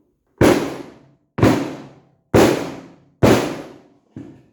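Hammer blows struck through a block of wood onto a bent Jeep soft-top door frame to straighten it. There are four hard blows about a second apart, each ringing off, then a lighter fifth near the end.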